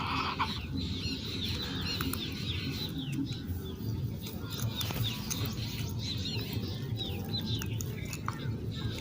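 Birds calling in short, repeated high chirps throughout, over a steady low rumble.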